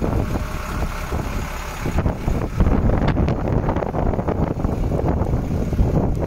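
Wind buffeting the phone's microphone: a rough, uneven rumble without any clear engine note.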